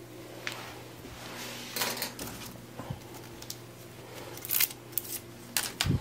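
Small handling noises: scattered short clicks, taps and rustles, bunched in the second half, with a dull bump just before the end, over a steady low hum.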